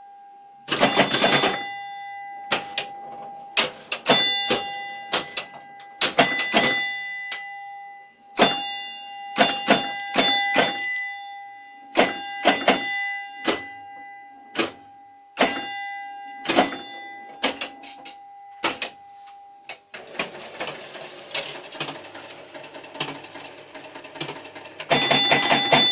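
1966 Williams A-Go-Go electromechanical pinball machine in play: sharp clacks of flippers, relays and scoring units, with bell strikes that keep ringing between hits. In the last several seconds the hits give way to a dense mechanical rattle, loudest near the end.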